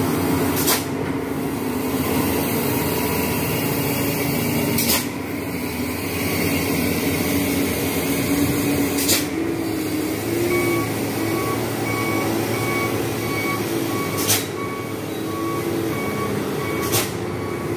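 Heavy vehicle engines running steadily on a steep mountain hairpin climb. From about ten seconds in, an electronic beeper sounds about twice a second. A few sharp clicks come at irregular intervals.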